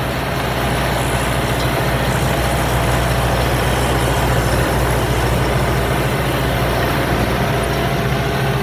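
Rice combine harvester's diesel engine running steadily under load while harvesting, with the noise of the cutting and threshing machinery over it.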